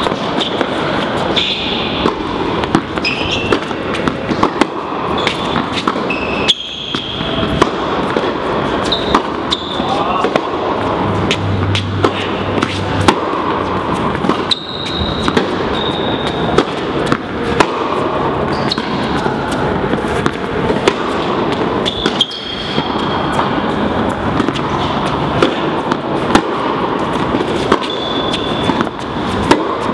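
Tennis rally in a large indoor tennis hall: repeated sharp knocks of racket strikes and ball bounces over a steady background of voices and hall noise.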